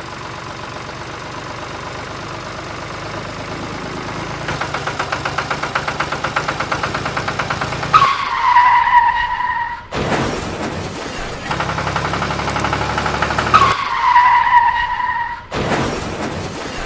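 A tractor engine running, growing louder and chugging faster about halfway through. Twice, a squeal slides slightly down in pitch and is followed by a noisy crash.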